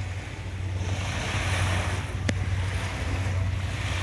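Small waves lapping and washing onto a sandy shore, the wash swelling twice, over a steady low rumble of wind on the microphone. One short click a little past halfway.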